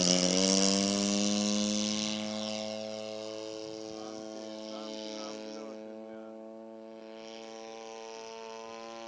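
Two-stroke opposed-twin engine of a radio-controlled Yak-54 model plane at full throttle for takeoff, its pitch rising a little and then holding steady as it fades while the plane climbs away.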